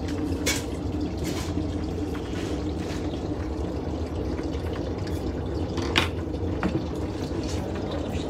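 Steady rushing hum of a portable mini glassblowing furnace running, with a few sharp clinks of metal glassblowing tools, the loudest about six seconds in.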